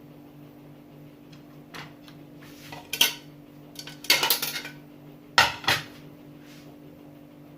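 Kitchen utensils and glass jars clinking and clattering while figs in oil are moved from a full jar into another. A light knock near two seconds in, a sharp clink at three seconds, a short rattling run around four seconds, then two sharp clinks about a second later.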